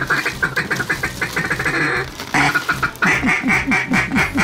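Duck call blown at passing ducks: a fast quacking chatter for about two seconds, then a steady string of loud quacks, about four a second.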